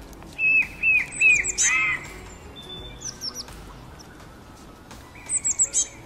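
Small songbirds chirping: quick runs of short, down-curving whistled notes, with a louder chirp a little under two seconds in and another quick run of chirps near the end.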